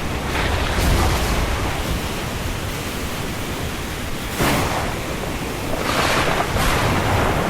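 Storm wind rushing steadily with a heavy low rumble, swelling in gusts about four and a half seconds in and again around six seconds.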